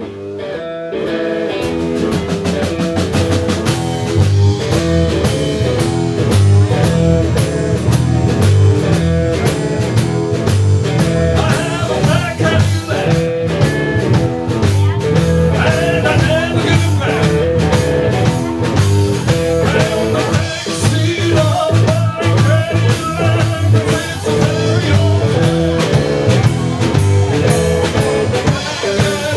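Live blues-rock band playing: electric guitar over a drum kit, the music building up in loudness over the first couple of seconds.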